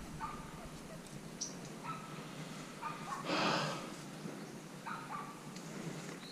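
A dog barking in the distance, short single barks every second or two. About three seconds in, a louder rustling swish, like brush dragging past the camera.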